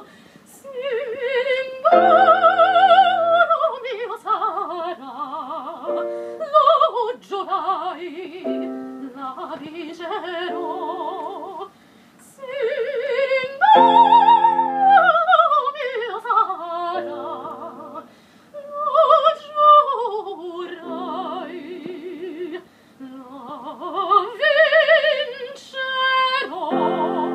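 Operatic soprano singing bel canto with a wide vibrato, long phrases rising and falling in pitch and breaking off briefly a few times, over piano accompaniment.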